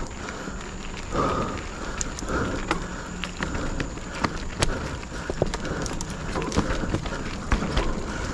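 Full-suspension mountain bike, a Specialized Stumpjumper Evo, being ridden on a dirt trail. A steady rumble of tyres and wind runs under frequent irregular clicks, knocks and rattles from the chain and frame over roots and rocks.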